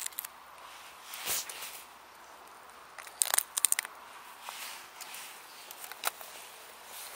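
Young oyster mushrooms being pulled and broken off a rotting log by hand: a run of crisp snaps and crackles, the sharpest cluster about three seconds in.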